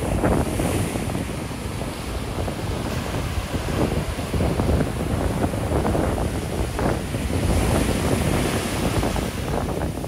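Ocean surf breaking and foam washing up the sand, with wind buffeting the microphone.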